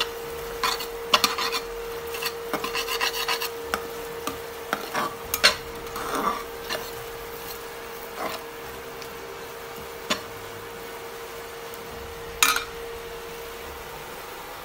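Metal ladle stirring curry in a steel pot, scraping and knocking against the pot's side. The strokes come thick for about seven seconds, then thin out to three single knocks. A steady hum runs underneath.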